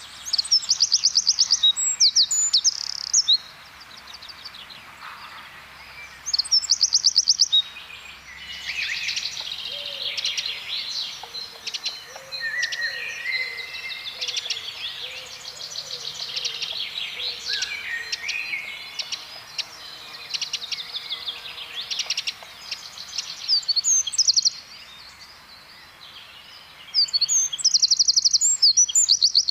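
Eurasian wren singing: short bursts of very fast, high trills, with a longer and more varied run of song in the middle.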